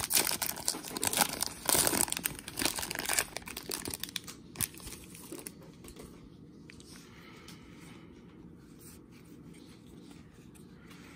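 Foil wrapper of a 2015 Panini Contenders Draft Picks trading-card pack being torn open and crinkled by hand. The crinkling lasts about the first four to five seconds, then it gives way to faint handling of the cards.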